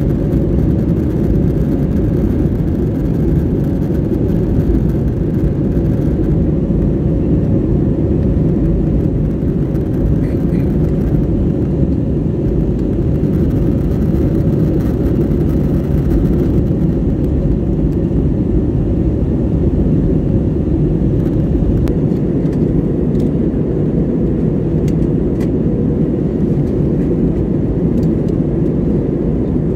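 Steady cabin noise of an Airbus A320neo in cruise: an even, deep rush of airflow and engine noise heard from inside the cabin, unchanging throughout.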